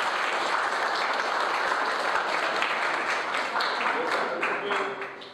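Audience applauding, a dense patter of many hands clapping that dies away near the end, with a voice faintly over it.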